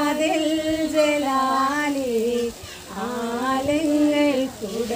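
Two women singing a song together, unaccompanied, in long held, slightly wavering notes, with a short break about halfway through.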